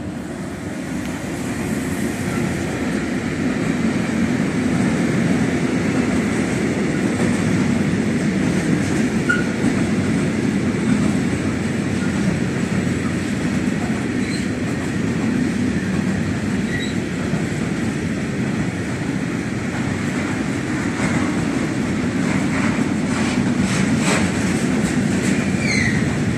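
Freight train of tank wagons rolling past behind a Hector Rail electric locomotive: a steady rumble of wheels on the rails that builds over the first few seconds. A few clicks and short wheel squeals come near the end.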